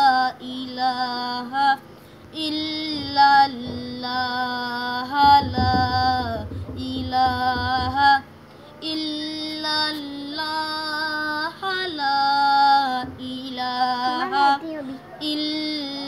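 A boy singing an Urdu devotional poem unaccompanied, in phrases of long held, wavering notes with short pauses for breath. A low rumble lies under the voice for a few seconds about five seconds in.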